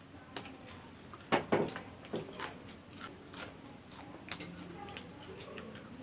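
Popcorn being chewed: irregular crunches and mouth clicks, the loudest two close together about a second and a half in.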